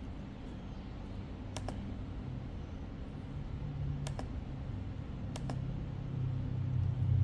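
A few sharp computer clicks while files are selected and uploaded, two of them quick double clicks, over a low steady hum that grows louder near the end.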